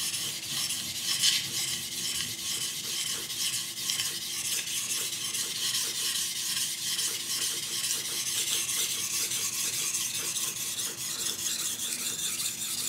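Steel knife edge stroked back and forth over a wet 1000 grit whetstone, a steady run of closely spaced gritty scraping strokes, working up a burr on the first side of the blade.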